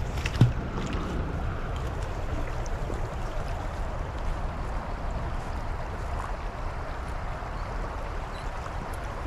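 Creek water running steadily, with one sharp knock about half a second in.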